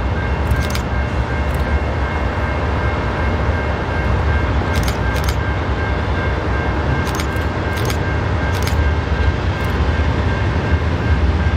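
BNSF freight train rolling past: a steady heavy rumble of wheels on rail, with irregular sharp clicks and a thin steady high tone over it.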